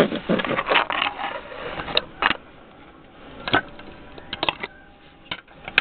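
Plastic Lego pieces being handled, with a scatter of light separate clicks and clatters.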